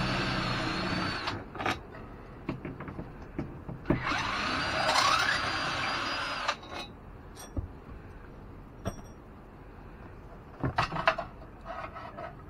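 Cordless drill with a 5/16 nut-driver bit running in two bursts of about two seconds each, backing out the bolts that hold an RV rooftop air conditioner's ceiling assembly. The pitch rises during the second run. Scattered clicks and a brief clatter follow.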